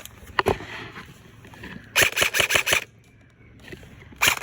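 Airsoft gun firing: a single shot about half a second in, then a rapid burst of about ten shots a second lasting under a second, and another burst starting at the very end.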